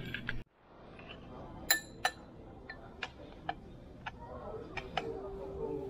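Metal spoon clinking and tapping against white ceramic bowls while eating, a string of sharp separate clinks at irregular intervals, the loudest two about two seconds in.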